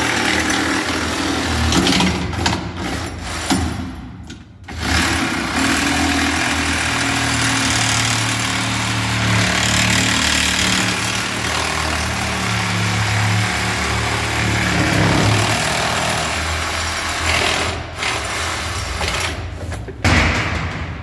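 Motor or engine running steadily and loudly, its pitch wavering slightly, with brief drops in level about four seconds in and again near the end.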